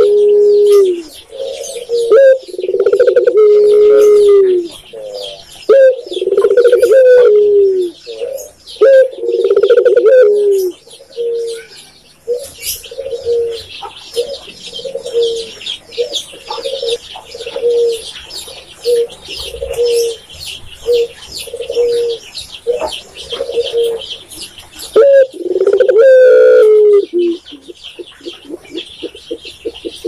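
A caged tekukur (spotted dove) cooing: repeated long, wavering coo phrases, then a run of short, evenly spaced coo notes about one a second through the middle, with long coos again near the end. High chirping from other small birds runs through the second half.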